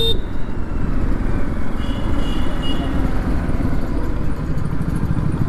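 Hero Destini 125 scooter on the move, its air-cooled single-cylinder four-stroke engine running steadily under wind rushing over the rider's microphone.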